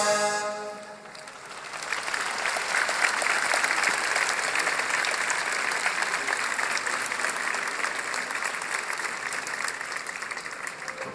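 A band's sustained closing chord fades out about a second in, then a large crowd applauds steadily.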